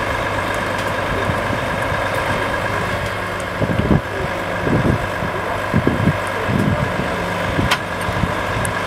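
Heavy recovery truck's diesel engine running steadily with a steady higher whine over it. Wind buffets the microphone several times from about the middle on, and there is one sharp click near the end.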